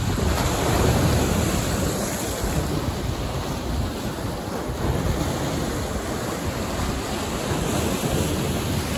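Sea waves washing and breaking against the boulders of a rock breakwater, a steady surf rush with a low rumble, with some wind on the microphone.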